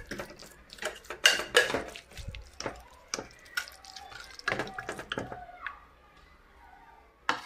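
Serving spoon and utensils clinking and scraping against pots and plates as food is dished up: a run of irregular knocks and clinks, some ringing briefly, easing off after about five seconds, with one more knock near the end.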